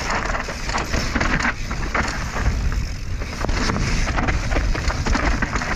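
Mountain bike riding fast down a dry, stony dirt trail: tyres crunching over gravel and rocks, with constant clattering and sharp knocks from the bike, and wind noise on the helmet camera's microphone.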